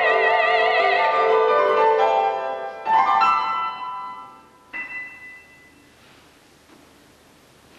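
The end of a classical art song: a female singer holds a high note with wide vibrato over the grand piano. The piano then strikes a loud chord about three seconds in and a soft final chord near five seconds that rings away, leaving a quiet hall.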